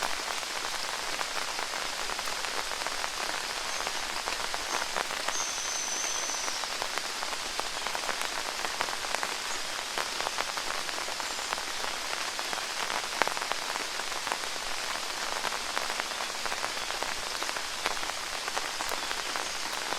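Steady summer rain falling in a forest, a continuous hiss with many individual raindrops ticking on leaves and surfaces. A brief high thin whistle sounds about five seconds in.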